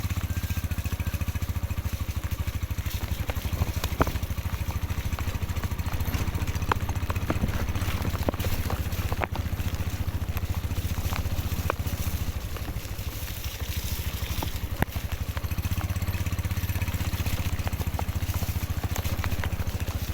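Large water pump's motor running steadily with a fast, even pulse, and scattered short clicks over it.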